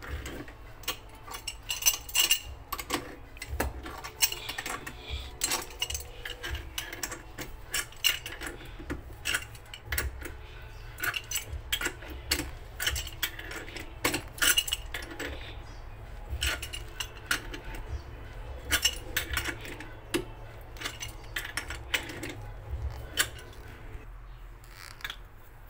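Pipe wrench and steel pipe fittings clinking and scraping in quick, irregular metal clicks while a socket is gripped and tightened onto a wall-mounted tee.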